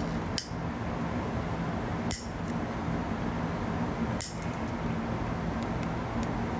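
Nail clipper snipping fingernails: three sharp clicks about two seconds apart, over a faint steady hum.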